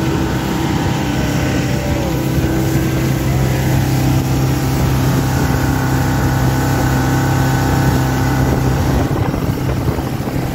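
Boat's outboard motor running steadily at cruising speed, a constant low hum over the rush of water and wind on the microphone.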